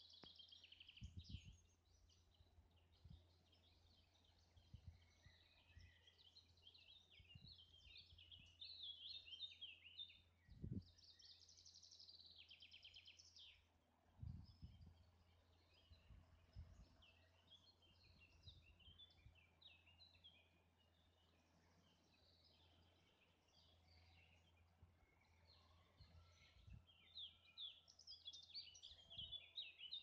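Faint songbirds chirping and trilling on and off, with a few low thumps and a steady low hum underneath.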